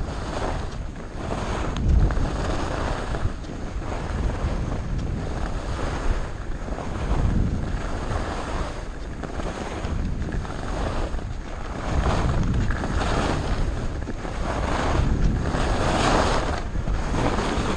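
Skis carving down a packed-snow piste, their edges hissing and scraping in regular swells about once a second as the skier links turns. Wind buffets the microphone throughout with a heavy low rumble.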